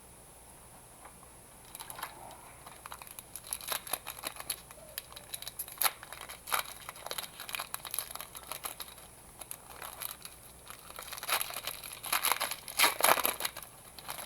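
A trading-card pack's plastic wrapper crinkling as it is handled and torn open. The crinkling starts about a second and a half in and is loudest near the end.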